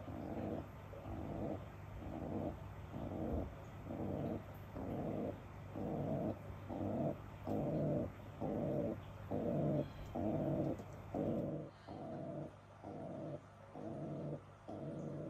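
Domestic pigeon giving its nest call, a low coo repeated about twice a second in a steady rhythm. This calling sound is a pigeon showing a nest spot it has found and inviting its mate to come: "come here my love, it's safe".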